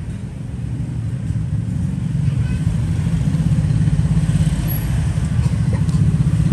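A motor vehicle's engine running with a low, fast-pulsing rumble that grows steadily louder.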